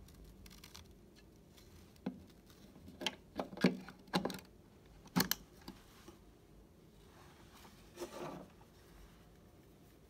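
Plastic clicks and knocks as a universal travel adapter's round pins are pushed into a Schuko wall socket. A cluster of sharp clicks comes from about two to five and a half seconds in, and a softer rub follows later.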